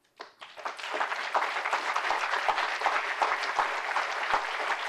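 Audience applauding: clapping starts just after the start and swells within about a second to a steady level.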